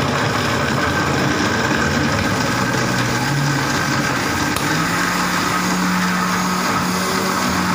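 Electric countertop blender's motor running steadily, grinding bananas, dates, figs, ice cream, milk and ice cubes into a milk shake. Its hum rises slightly in pitch about five seconds in.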